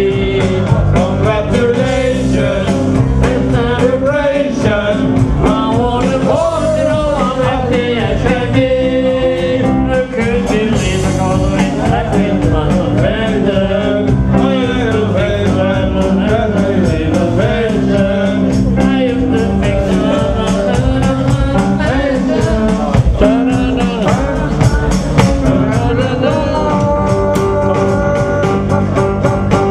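Live band performing a song: a singer over instrumental backing with a steady beat.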